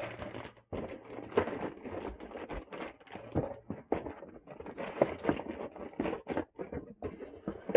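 Motherboard packaging being handled: a string of irregular light taps, clicks and rustles.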